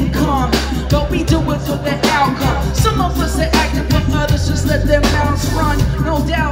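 Live band playing: a lead vocal sung into a microphone over bass guitar and drums, heard from among the audience.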